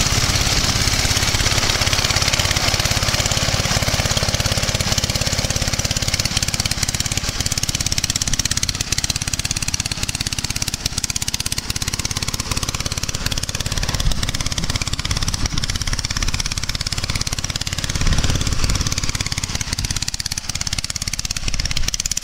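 Engine running steadily under load, driving an Olympia reaper-binder at work in standing wheat, with a fast even pulse and a few brief low bumps in the later part.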